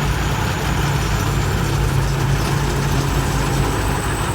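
Turbocharged diesel engine of a Sit Charoen Kan Chang rice combine harvester running steadily, a deep rumble under a thin high turbo whistle that rises slightly near the end.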